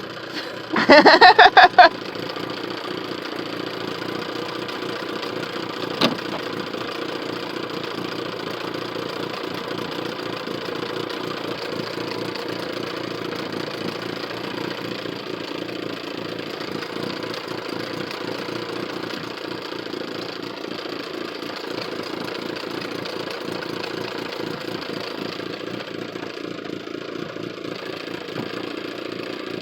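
Boat motor idling steadily. About a second in there is a brief loud shout, and a single sharp click comes around six seconds.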